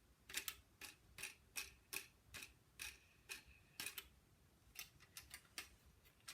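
Light plastic clicking from a Lego set's spinning part being turned by hand, about three clicks a second at an uneven pace.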